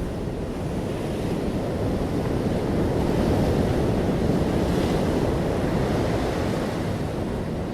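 Steady rushing of ocean surf with wind, swelling slightly in the middle and easing again.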